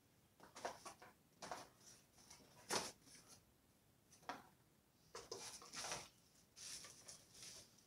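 A string of irregular soft rustles and light knocks from small parts or packaging being handled by hand, the sharpest knock a little under three seconds in.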